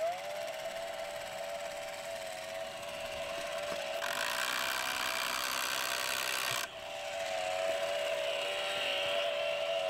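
A cordless electric string trimmer (Milwaukee M18) spins up and runs with a steady whine. From about four seconds in until nearly seven, the cutting line hits grass along the patio edge, adding a louder hiss that stops suddenly while the motor keeps running.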